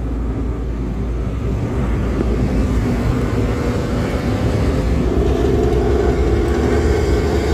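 Front-engined intercity bus running with a 'ngorok' exhaust, a deep rumbling growl that grows slightly louder, with a steady hum joining about five seconds in.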